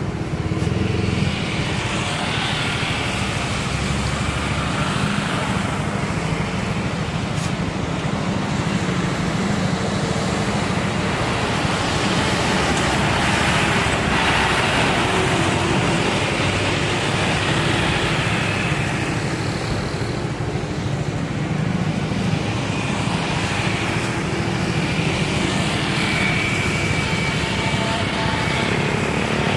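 Boeing 777-300ER's two GE90-115B turbofan engines running at taxi power: a steady jet rumble and hiss with a higher whine that swells and fades several times.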